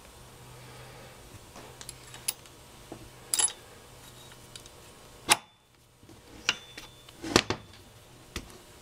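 Scattered small metallic clicks and clinks as steel C-clips and the cross shaft are fitted by hand into an Eaton posi differential carrier, with a sharper click about five seconds in and a few more near the end.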